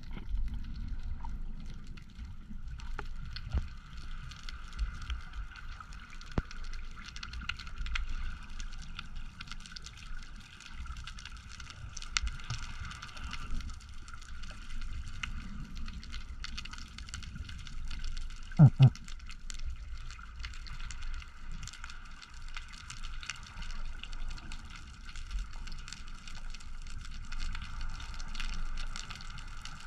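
Muffled underwater sound picked up by a camera in a waterproof housing: a low rumble under a steady faint hum, dotted with small scattered clicks. A little past halfway come two heavier knocks close together.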